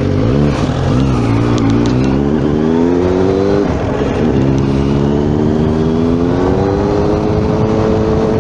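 Suzuki GSR 600's 599 cc inline-four engine with its stock exhaust, accelerating as the bike rides off. It rises in pitch, drops at a gear change about three and a half seconds in, then climbs again and levels off near the end.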